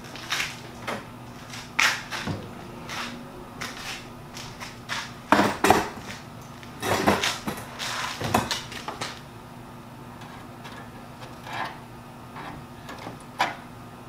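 Irregular clicks, knocks and rattles of tools and metal parts being handled and rummaged through, loudest in a cluster around the middle, over a faint steady hum.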